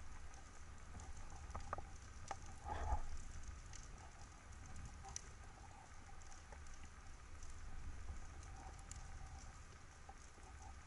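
Underwater ambience through a submerged camera: faint scattered crackling ticks over a low steady rumble, with a short louder noise about three seconds in.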